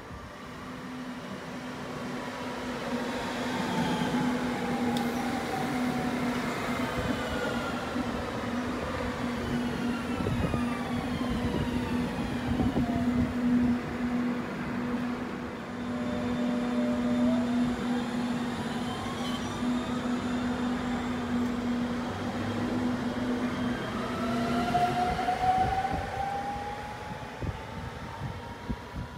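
NordWestBahn electric multiple unit's traction drive whining, the pitch falling over the first half as the train slows, then rising again as it pulls away. A steady hum from the unit runs beneath, stopping shortly before the end.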